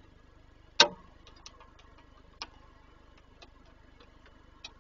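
Raindrops dripping onto the nest box: one loud sharp knock about a second in, then scattered fainter ticks at irregular spacing.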